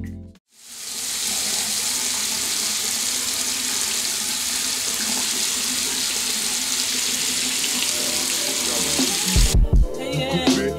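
Bathroom sink tap running in a steady stream of water while a face is being washed; the water stops abruptly about nine and a half seconds in. Music with a beat comes in near the end.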